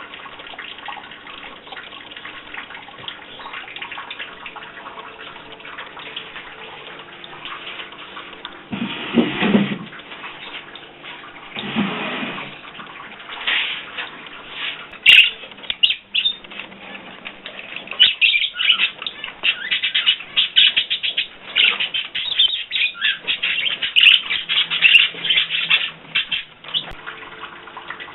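Tap water running steadily, with a pet bird chirping over it, the chirping busier from about halfway through.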